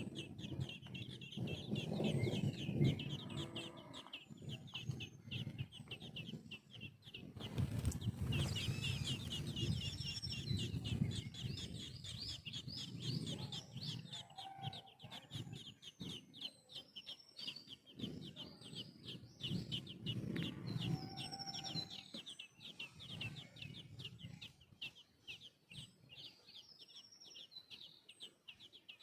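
Hatchlings begging at the nest as they are fed, a fast unbroken string of short high chirps. Louder, lower sounds come and go over them at several points.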